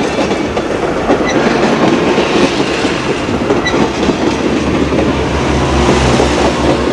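Passenger cars of a steam excursion train (Southern Pacific Daylight) rolling past at close range, their steel wheels clacking over the rail joints in a steady rapid rattle.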